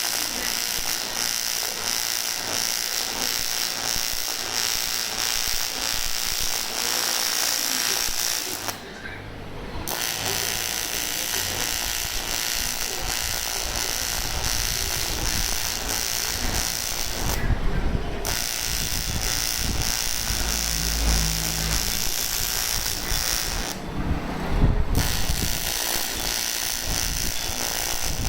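AC TIG welding arc on aluminium, a steady buzzing hiss. It cuts out three times for about a second and starts again.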